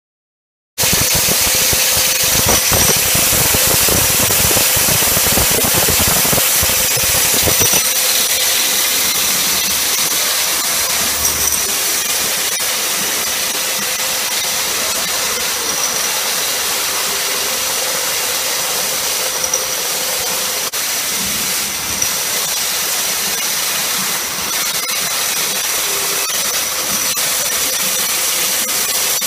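Steady machinery noise of a beer bottling line: conveyors carrying glass bottles, a continuous hiss with a constant high whine and a lower hum, starting abruptly just under a second in. A low rumble underneath drops away after about eight seconds.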